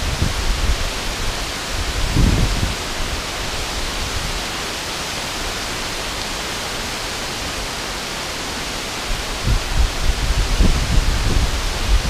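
A river spilling over a low dam and cascading across rocks, making a steady, even rush of water. Now and then low rumbles rise above it, mostly near the start and again in the last couple of seconds.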